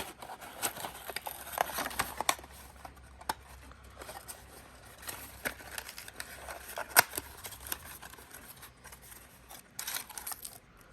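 Accessories and their packaging being handled by hand during an unboxing: scattered clicks, taps and rustles, with one sharp click about seven seconds in.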